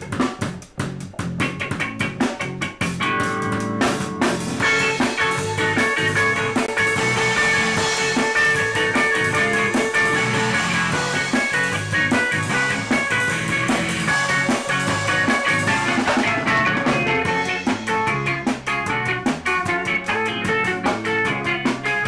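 Ska-punk band playing live in rehearsal: electric guitars through guitar amplifiers, electric bass and a drum kit together. Drum hits lead for the first few seconds, then held guitar notes come in over the beat.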